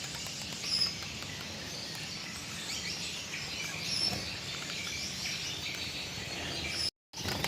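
Gouldian finches in an aviary giving faint, scattered short chirps over a steady background hiss.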